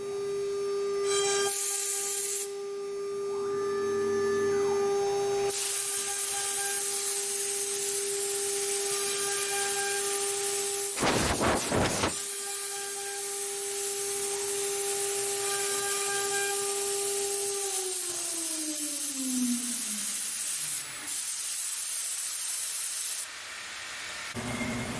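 CNC router's 3 kW water-cooled spindle running at a steady high-pitched whine while its bit carves a relief into a wood panel, over a steady cutting hiss. Late on, the whine slides down in pitch.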